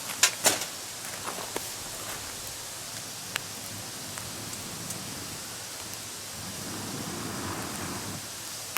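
Wood campfire crackling: a steady hiss broken by sharp pops, two loud ones right at the start and a few scattered ones after.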